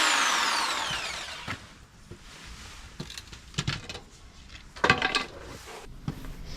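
Power tool motor winding down with a falling whine after being switched off, then a few scattered knocks and clatter from tools and materials being handled, the loudest about five seconds in.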